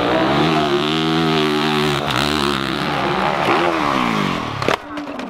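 Dirt bike engine revving hard on a steep hill climb, its pitch climbing and dipping with the throttle. Near the end the revs fall away in a long slide and a sharp knock follows as the bike loops over backwards.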